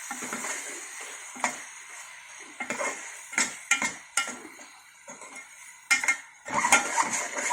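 A spoon stirring chicken in tomato purée in a cooking pan, knocking and scraping against the pan in irregular clicks, over a light sizzle from the low flame.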